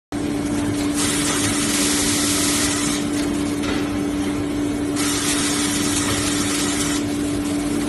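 Automatic band saw cutting machine for tissue and hand-towel paper rolls running, with a steady hum and a high hiss that swells up twice for about two seconds each.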